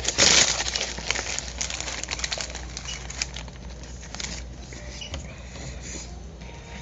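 Paper sandwich wrapper crinkling and rustling as it is handled, loudest in a burst at the start, then thinning to scattered crackles that fade after about four seconds.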